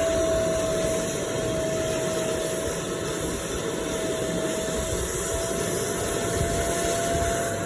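Carpet extraction vacuum running steadily, a constant motor whine over a dense rushing noise.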